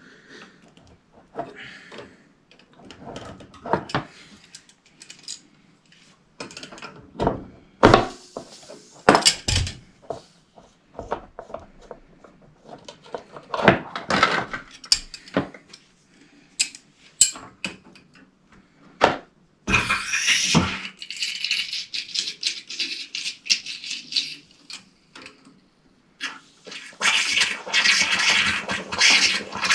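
Metal tools and fittings clinking, knocking and rattling in a plastic tray as a radiator's microbore pipework is worked on by hand, in scattered clicks and knocks. About two-thirds of the way through a hiss starts, stops, and comes back louder near the end.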